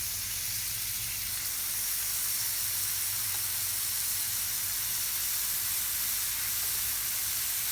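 Skewers of marinated paneer, onion and capsicum sizzling steadily in butter on a hot tawa.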